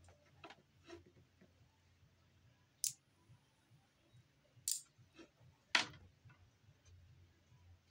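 Faint low hum with a handful of sharp, scattered clicks, the loudest three coming about three, four and a half and six seconds in.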